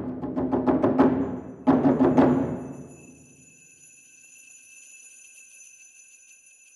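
Japanese taiko drums played as an ensemble in quick, even strokes, then a heavy accented hit about two seconds in that rings out and dies away. A faint high ringing tone holds after the drums stop.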